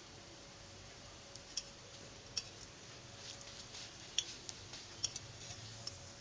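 Hot oil in a karai crackling and spitting as a chop is laid in with a metal spatula: scattered sharp pops and clicks, starting about a second and a half in and thickest a few seconds later.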